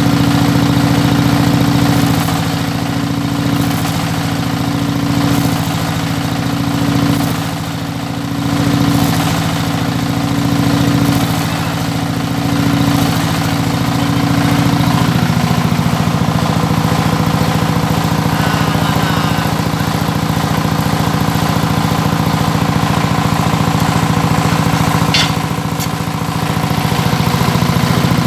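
An engine idling steadily. Its sound swells and dips several times over the first half, then settles to a steady, slightly lower note about halfway through.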